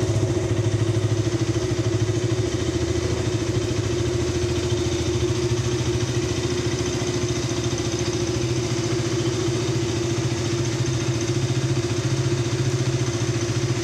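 KTM Duke 200's 199 cc single-cylinder, fuel-injected, water-cooled engine idling steadily, freshly started, heard through its exhaust.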